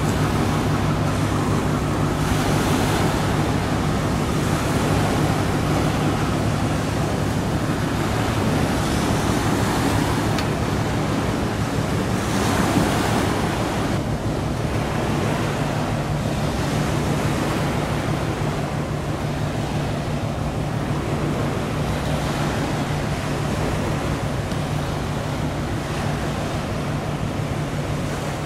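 Steady low drone of a tugboat's diesel engine under the rush of sea water and wind. The level stays even throughout.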